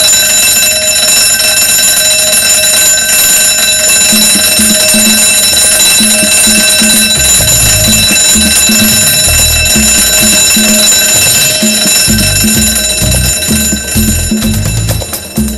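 Fire alarm ringing steadily and loudly, fading near the end. A pulsing electronic music beat comes in about four seconds in, with heavier bass from about seven seconds.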